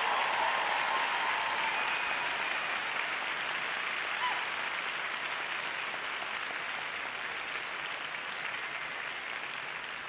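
Large arena audience applauding steadily.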